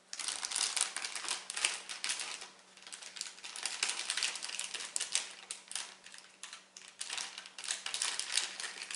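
Crinkling and rustling of a metallized plastic bag being handled, in dense crackly bursts with brief lulls about three and six and a half seconds in.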